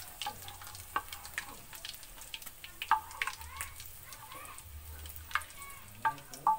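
Fried chilies, shallots and garlic in hot oil faintly sizzling as a spatula scrapes them out of a wok into a clay mortar, with a few sharp clinks of the spatula against the pan.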